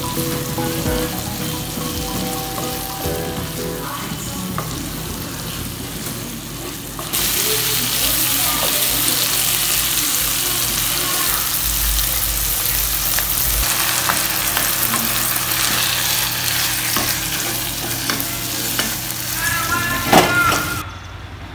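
Shrimp, cabbage and green chillies sizzling in hot oil in a kadai while being stirred with a wooden spatula. The sizzle turns louder and brighter about seven seconds in, and there is a brief louder burst near the end.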